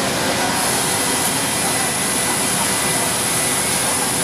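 CNC woodworking machining centre's HSD router spindles running and cutting a wooden block: a steady, loud whirring noise, joined about half a second in by a thin high whine that holds.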